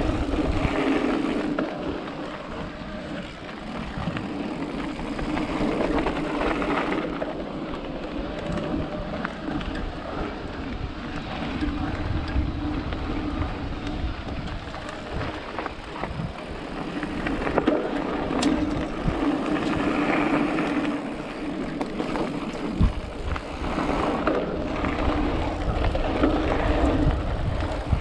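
Electric mountain bike ridden fast down a gravel trail: knobby tyres rumbling over gravel and wind buffeting the microphone. A steady hum from the Yamaha mid-drive motor comes and goes in spells.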